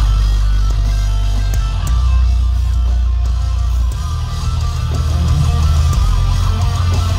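Heavy metal band playing live through a festival PA: distorted electric guitars, bass guitar and drums, with a heavy low end.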